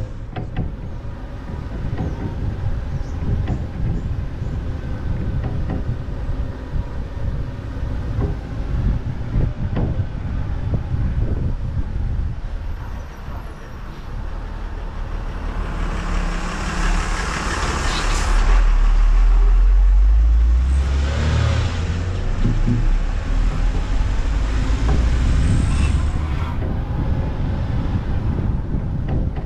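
Open-top Moke on the move: engine and road noise, with wind buffeting the microphone. A louder swell of vehicle noise rises and falls about 16 to 21 seconds in.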